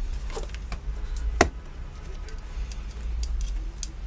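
Small scattered clicks and taps from handling a multimeter and its test probes, with one sharper click about a second and a half in, over a low steady hum.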